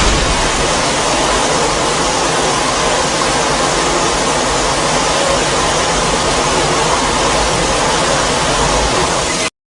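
Godzilla's atomic breath sound effect: a loud, steady rushing hiss that cuts off suddenly near the end.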